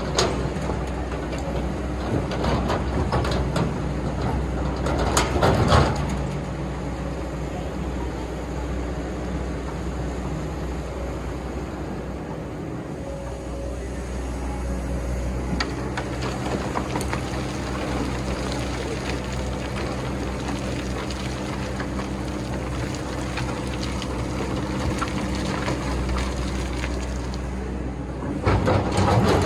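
Excavator working in sand: its diesel engine runs steadily under load, with louder noisy bursts about five seconds in and again near the end.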